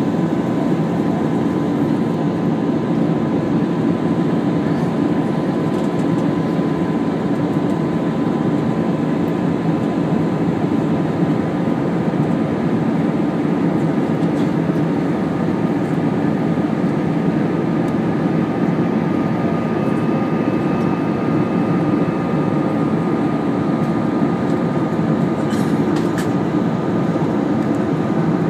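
Steady cabin drone of a jet airliner in flight, engine and airflow noise heard from a window seat, with a faint high steady whine running through it.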